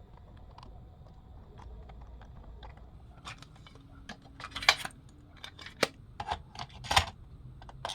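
Hard plastic clicks and clacks from handling a toy cassette player and cassette: a few faint ticks, then from about three seconds in a run of sharp, louder knocks about half a second apart.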